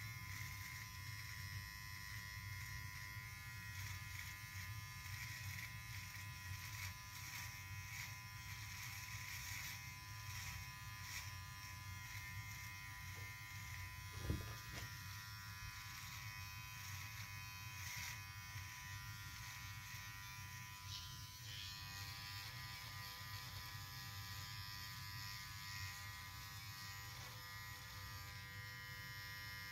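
Cordless hair trimmer (edger) buzzing steadily while it trims a beard and neckline, with a single brief knock about halfway through.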